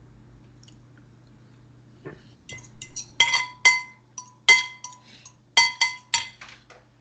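A utensil clinking against a dish about six times in the second half, each strike ringing briefly, over a faint low steady hum.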